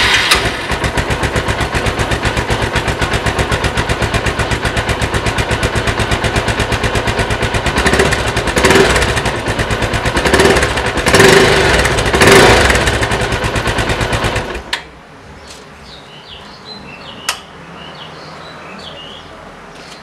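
Bajaj Pulsar 220F's single-cylinder engine running through its open exhaust with the muffler removed: a rapid, even pulsing at idle, revved in several short blips around the middle, then cut off about three-quarters of the way through. Afterwards faint bird chirps and a single click.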